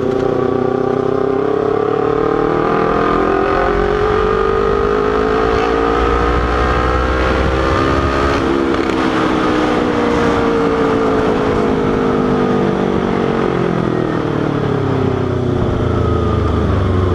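Kawasaki Ninja 250 parallel-twin engine under way, its pitch climbing slowly for about eight seconds as the bike gathers speed, then falling steadily as it slows.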